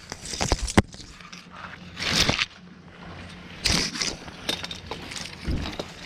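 Ash branches and foliage rustling and cracking, with a few sharp knocks about half a second in and rushing bursts around two and four seconds.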